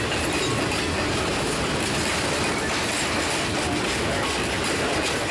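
Steel wheels of passing railcars rolling close by on jointed track: a steady, loud rumble with clicks as the wheel trucks cross a bolted rail joint.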